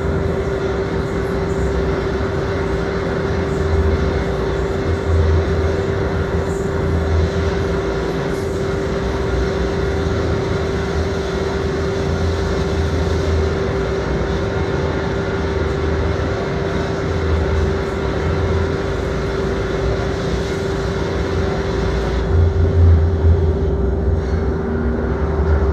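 Electronic drone from a psychoacoustic sound installation. A single steady mid-pitched tone is held over a dense rumbling wash, with deep bass swelling in and out every second or two and growing louder near the end.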